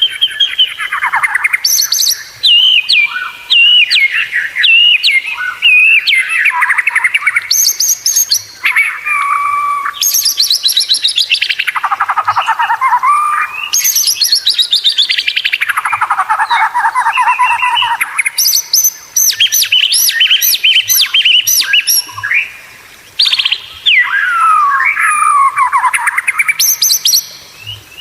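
White-rumped shama singing continuously and loudly: fast trilled phrases that sweep down in pitch, one after another with short pauses between them.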